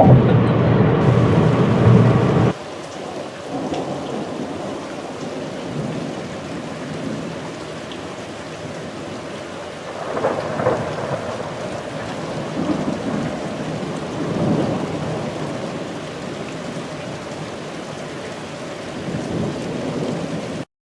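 Steady rain with several rolls of thunder swelling and fading through it. A louder, denser sound fills the first couple of seconds and cuts off abruptly about two and a half seconds in.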